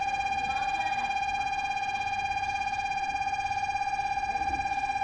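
Station platform departure buzzer sounding before a train leaves: one steady electronic tone with a fast, even pulse.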